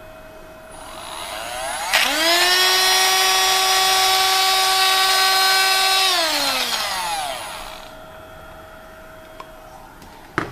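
POLYTRON PT 1200 E handheld rotor-stator homogenizer spinning up to a steady high whine, running for about four seconds while it disperses a meat sample in a tube, then winding down with falling pitch. A light click comes near the end.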